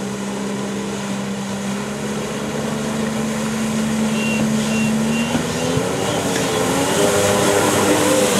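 Jet ski engine running at speed over the hiss of its spray, growing louder as it comes close. About five seconds in its steady note breaks off and higher notes climb.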